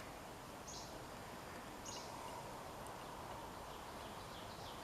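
Quiet background with a few faint, short high chirps about a second apart, from birds or insects, over a low steady hiss.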